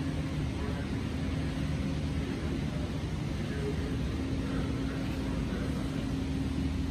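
Steady low hum with a faint constant tone, the room noise of a large hangar-like exhibit hall.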